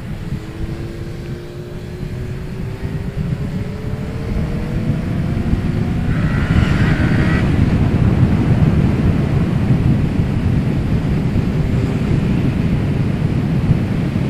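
Suzuki Bandit 650 S inline-four engine accelerating, its note rising steadily for about six seconds. Heavy wind rumble on the helmet microphone then grows louder and takes over as speed builds.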